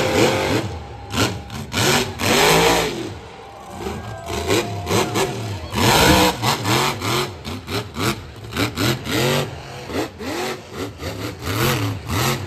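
Monster truck engine, loud, revving hard in a rapid series of blips, its pitch swooping up and down two or three times a second through the second half, as the truck spins and throws tyre smoke.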